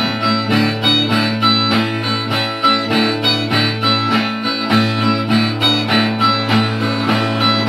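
Viola caipira, the Brazilian ten-string guitar, played as an instrumental interlude between sung verses: a steady run of plucked notes, about four a second, over low strings left ringing.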